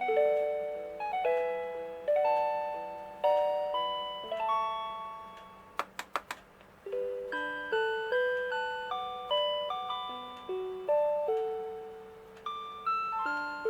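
Electronic melody of a Rhythm Watch Melody Club cassette-swap alarm clock playing a J-pop tune in chime-like notes that each strike and fade. About five seconds in the tune ends, a few quick clicks sound, and about seven seconds in the next tune starts.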